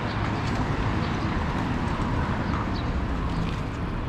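Steady city street ambience: the general noise of traffic and an urban street, with no single sound standing out.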